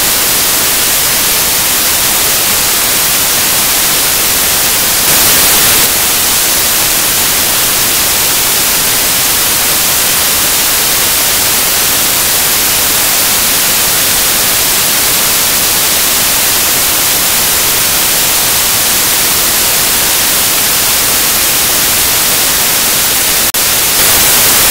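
Loud, steady static hiss like white noise, brighter toward the high end, swelling briefly about five seconds in and again near the end.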